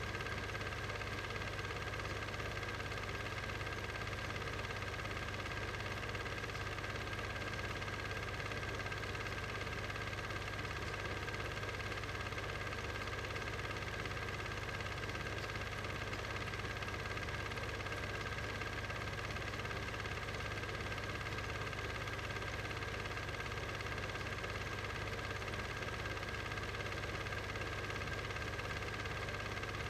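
Steady, unchanging machine hum with an even hiss, with no events or changes.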